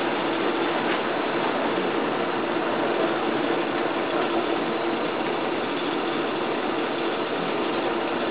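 Air blower forcing air into a charcoal-fired mini kiln: a steady rushing noise with a low motor hum that does not change.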